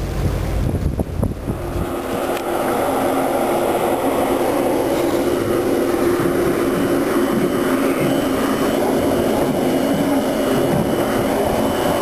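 Wind buffeting the microphone for about two seconds, then a steady machinery drone made of several even tones from a ship's onboard machinery, heard on deck beside the deckhouse.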